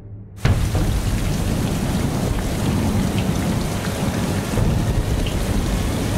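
Heavy rain pouring, cutting in suddenly about half a second in, with a low rumble underneath.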